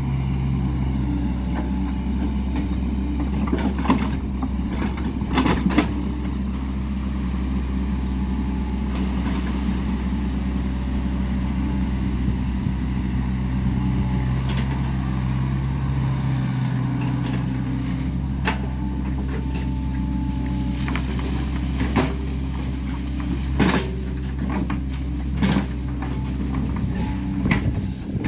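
Tracked excavator's diesel engine running steadily as it digs, with several short sharp knocks, around 4 and 6 seconds in and several more near the end.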